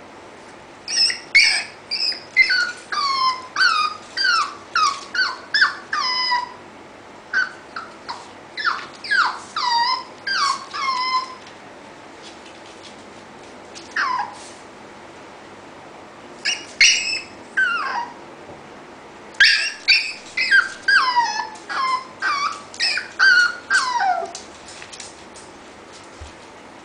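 Papillon puppy whining, pleading to be let out: strings of short, high, falling whines in several bouts with a few seconds' pause between them.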